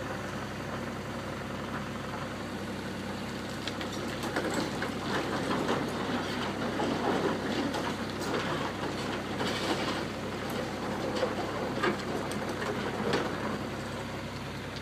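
Hyundai 140 LC-9 tracked excavator's diesel engine running steadily under work. From about four seconds in until near the end, irregular metallic clanking and scraping from the machine's digging gear sound over it.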